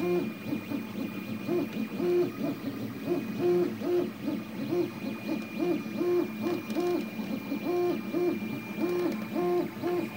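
Anet A8 3D printer's stepper motors singing as the print head moves back and forth laying down infill: a rapid, even run of short pitched tones about twice a second, each ramping up, holding and dropping back in pitch. A faint steady high whine sits underneath.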